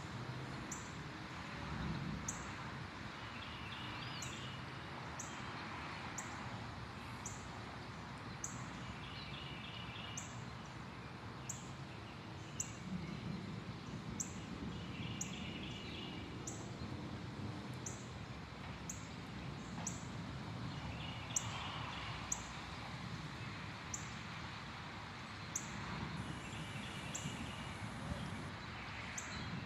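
Outdoor ambience of a songbird repeating the same short phrase about every six seconds, with a sharp high tick about once a second, over a low background hum that swells now and then.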